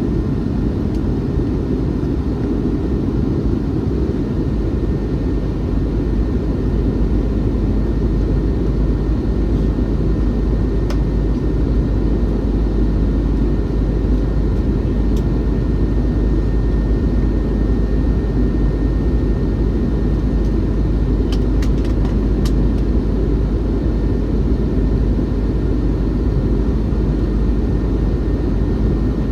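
Steady low drone inside the cabin of an Airbus A321-211 in flight: engine and airflow noise from the CFM56 turbofans and the fuselage. A few faint clicks come through about two-thirds of the way through.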